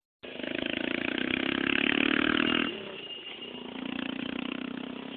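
A small engine running nearby, pulsing steadily. It grows louder over the first two and a half seconds, drops off suddenly, then swells again briefly about four seconds in.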